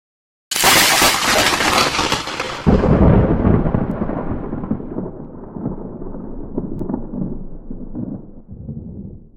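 Thunderclap sound effect: a sudden loud crack about half a second in, a second heavy boom about two seconds later, then a long rumble that fades and cuts off abruptly at the end.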